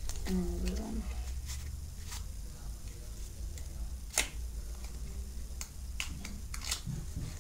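Cardboard tuck box of a Bicycle playing-card deck being handled and opened: scattered light clicks and taps of card and cardboard, the sharpest about four seconds in, over a low steady hum.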